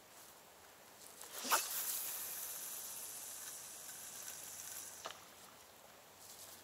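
A long rod swishing through the air on a cast about a second and a half in, then the steady hiss of fishing line running off a spinning reel's spool for about three seconds, cut off by a sharp click as the line stops.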